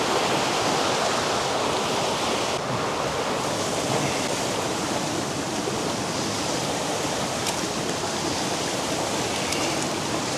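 A mountain stream rushing steadily, a continuous hiss of running water.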